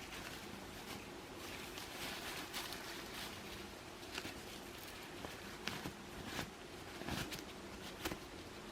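Scattered light clicks and rustles of things being handled, over a faint steady hum.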